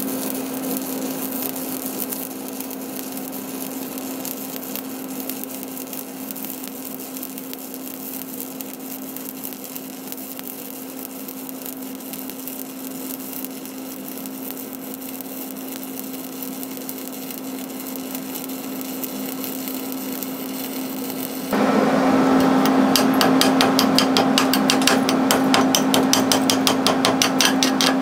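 Stick welding arc burning a 7018 electrode: a steady crackling sizzle as the rod lays a bead, the welder set with its hot start and arc force turned up. About 21 seconds in it gives way suddenly to a louder, rapid rattling clatter as the beads are cleaned of slag.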